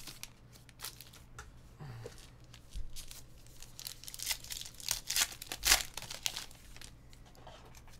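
Trading card packs being torn open and their wrappers crinkled: a run of irregular crackling rips, loudest about five to six seconds in.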